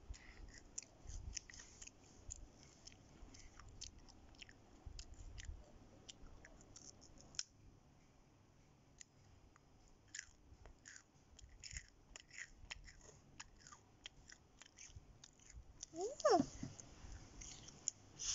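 A child chewing crunchy fish crackers (keropok ikan), with many small crackling crunches and soft mouth sounds throughout. Near the end she makes a short voice sound that slides in pitch, the loudest moment.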